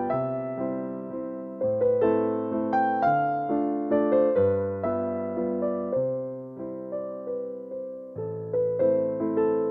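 Slow, gentle solo piano music: a melody of single struck notes over low bass notes that change about once a second, each note left to ring and fade.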